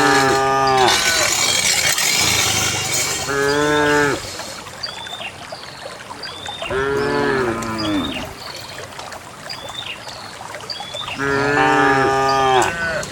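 Cows mooing in turn: four long, drawn-out moos about three to four seconds apart, with short high chirps in the gaps between them.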